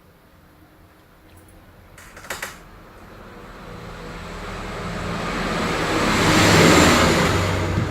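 A motor vehicle's engine and road noise swelling over several seconds and loudest near the end, as when a vehicle drives close by. There are a couple of small clicks about two seconds in.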